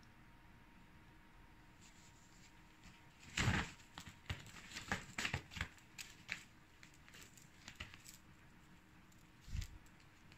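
Crinkly nylon fabric of a cat's pop-up play tunnel rustling in short, sharp bursts as the cat inside lunges and swats at a feather wand toy, with the loudest rustle about three seconds in and a low thump near the end.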